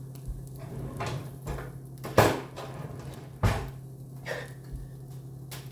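Kitchen clatter: several knocks, two loud ones about a second and a quarter apart, with a steady low hum under them.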